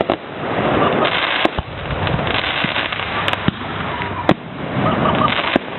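Fireworks going off: continuous crackling with several sharp bangs, roughly one every second or two.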